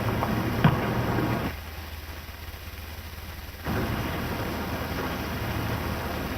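Hiss and crackle of a 1929 film's soundtrack with a low hum under it and a sharp click under a second in. The noise drops away for about two seconds, then comes back.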